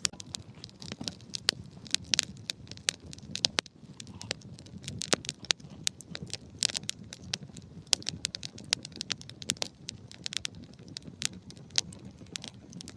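Wood fire crackling, with frequent sharp pops and snaps over a low steady rush of flames.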